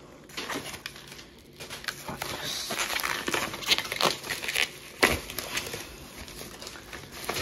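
Paper wrapping and bubble wrap crinkling and rustling as they are pulled off a boxed action figure by hand, with a single thump about five seconds in.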